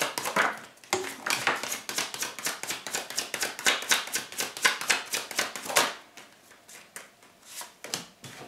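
A deck of tarot cards being shuffled in the hand: a rapid run of card slaps and flicks that stops about six seconds in, followed by a few soft taps.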